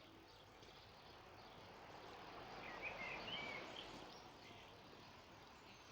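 Quiet outdoor background hiss that swells and fades over a few seconds, with a short run of bird chirps about three seconds in.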